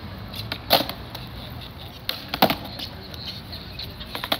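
Skateboard wheels rolling on a smooth stone floor, with several sharp wooden clacks of the board popping and landing; the loudest comes about two and a half seconds in, and a quick cluster near the end.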